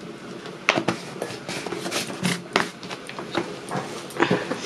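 A plastic jar and a steel bowl being handled: irregular clicks and taps, several to a second.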